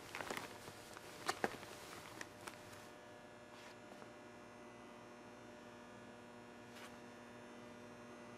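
A curtain rustling as it is pushed aside, with a few sharp clicks, the loudest two close together about a second and a half in; after that only a faint, steady hum.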